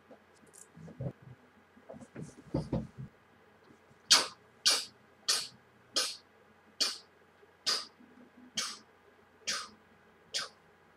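A person making a run of nine sharp, crisp clicks starting about four seconds in, the gaps between them slowly lengthening from about half a second to nearly a second. Before the clicks there are a few faint soft movement sounds.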